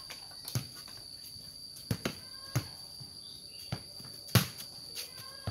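A ball kicked by bare feet and bouncing on a concrete yard: several short sharp thuds at irregular intervals, the loudest a little past four seconds in. A steady high-pitched insect drone runs underneath.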